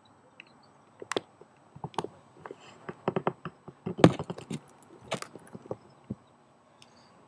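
Camera handling noise: irregular clicks, knocks and rubbing as the handheld camera is moved and turned around, loudest about four seconds in.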